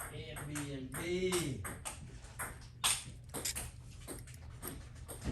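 Small sharp clicks and taps of hand repair tools on the opened smartphone's metal and glass parts, scattered and irregular, the sharpest about three seconds in. A brief spoken murmur comes near the start.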